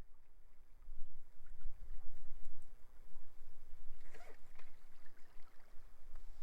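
Sea waves washing on the shore, with strong wind buffeting the microphone as a heavy low rumble. A brief louder rush of water about four seconds in.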